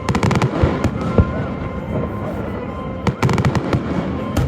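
Fireworks display finale: two rapid volleys of sharp bangs, just after the start and again about three seconds in, with single reports between them.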